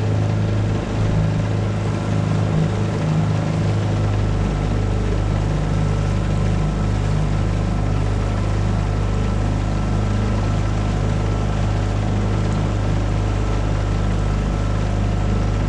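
Tohatsu 9.8 four-stroke outboard motor running steadily under way, pushing a small V-bottom boat.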